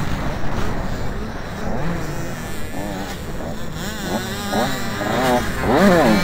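Dirt bike engine revving up and down through the gears while riding a motocross track, the pitch rising and falling repeatedly and getting louder and quicker near the end.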